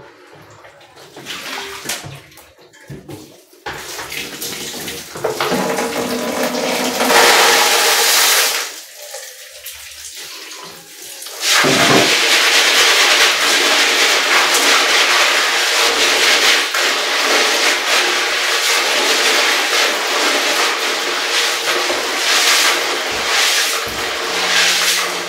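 Water splashing in a stainless-steel kitchen sink as grains are rinsed in plastic bowls to wash the dust out. About halfway through, the tap opens and runs steadily and loudly into a plastic basin.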